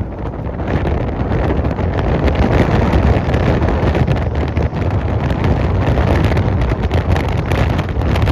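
Strong blizzard wind blasting across the microphone, a loud, steady rumbling buffet with no let-up.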